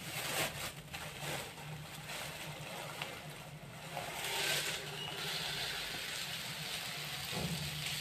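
A plastic bag of sugar crinkling as it is handled and opened, then sugar pouring from the bag into a plastic jar with a steady hiss starting about halfway through.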